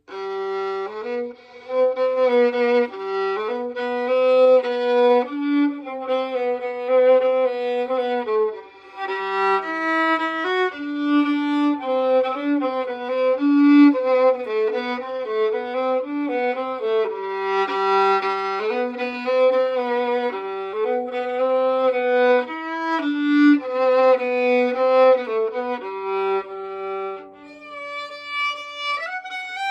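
Solo fiddle playing a tune low down on its lower strings, then jumping up to high notes near the end.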